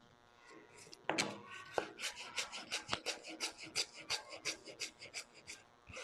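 A knife thinly slicing a peeled piece of ginger on a wooden cutting board, in rapid, even strokes about five a second, starting about a second in.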